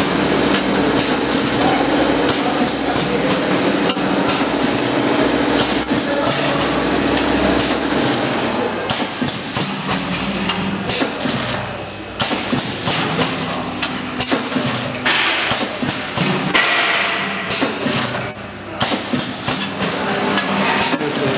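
Four-head linear weigher on a vertical form-fill-seal packing machine running, with repeated sharp metallic knocks and clatter from the weigh-hopper gates opening and shutting. A steady machine hum runs under it for the first several seconds.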